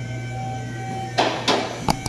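Steady low hum with three sharp knocks in the second half, the last one near the end.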